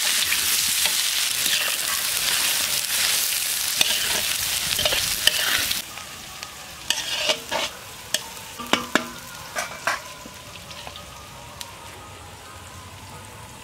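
Chopped onions sizzling loudly in hot oil in a large wok. About six seconds in, the sizzle drops off sharply to a quieter frying hiss, with scattered clinks and knocks of a spatula stirring in the pan.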